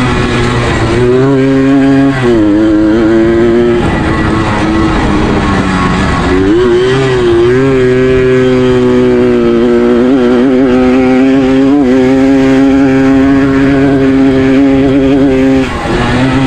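Suzuki AX 100 two-stroke single-cylinder engine at full throttle, running at high revs. Its pitch dips briefly about two seconds in, falls away and climbs back between about four and six and a half seconds in, holds high and steady, then dips again near the end.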